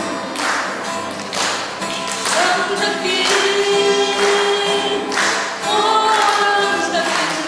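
Two women singing a duet into a microphone, with a strummed acoustic guitar accompanying them.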